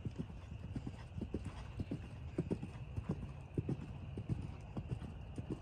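Horse's hooves striking the sand footing of a riding arena: a steady run of hoofbeats, several a second, as the horse is ridden around the ring.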